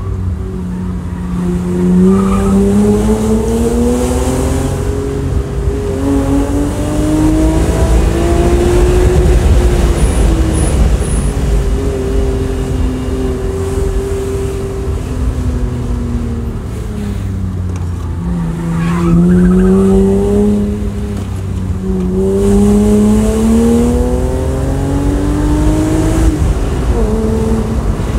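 BMW E36 M3's S50B30 straight-six through a Supersprint race exhaust, heard from inside the cabin as the car is driven hard. The engine note climbs in pitch under acceleration several times, dropping back between pulls and holding steady for a few seconds in the middle.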